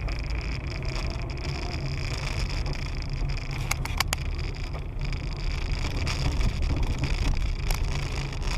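Steady low rumble of a moving car's engine and road noise, with a few sharp clicks about four seconds in.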